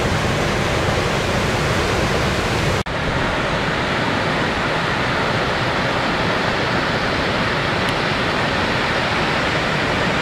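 Steady rushing of whitewater river rapids. A brief gap about three seconds in, after which the rush is a little duller.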